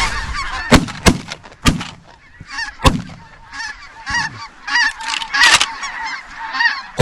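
Snow and Ross's geese calling over and over in high yelps while shotguns fire, four quick shots in the first three seconds and one more later.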